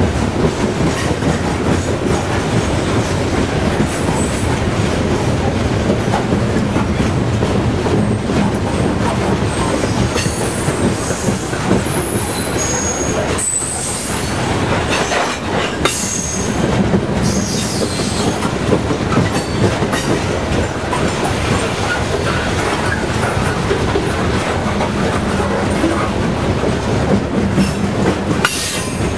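Freight cars of a Norfolk Southern coal train rolling past close by: a steady rumble of steel wheels on rail with clicking over the rail joints. High-pitched wheel squeals come and go around the middle.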